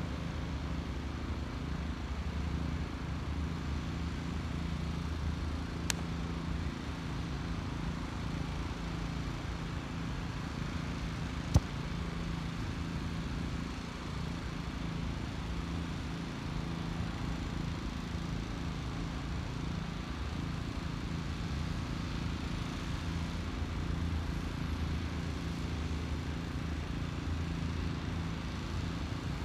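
Steady low mechanical hum over a light outdoor hiss, with two brief sharp clicks, one about six seconds in and a louder one near twelve seconds.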